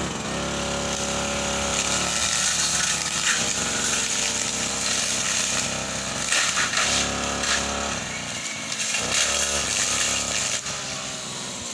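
Two-stroke brush cutter engine running under throttle, revving up and down, easing off about eight seconds in and revving up again about two seconds later.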